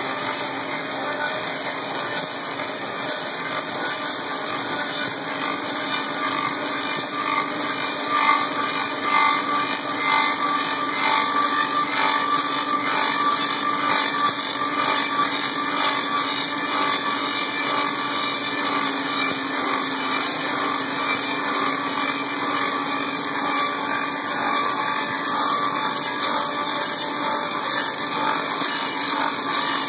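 Klotz copying lathe turning an axe handle: its motor and cutter head run steadily, shaving the wooden blank in a continuous rough cutting noise over a constant low hum.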